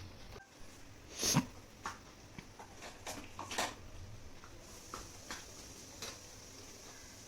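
Scattered light clicks and knocks of toy dishes being handled and set down, with one short, louder breath-like sound about a second in.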